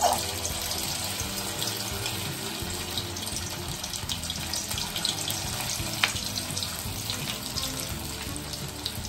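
Cornflour-and-egg-coated fish pieces deep-frying in hot oil in a wok, sizzling and crackling steadily. The sizzle jumps up as the fish goes into the oil at the start, then settles.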